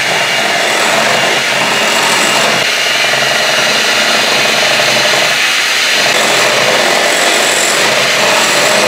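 Electric kitchen mixer running steadily, beating muffin batter in a bowl.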